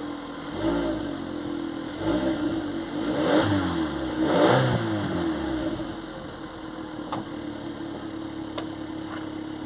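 Seat Ibiza 1.2 TSI four-cylinder turbo-petrol engine, cold, blipped several times so that its pitch rises and falls, then settling to a steady idle about six seconds in, with a few faint ticks.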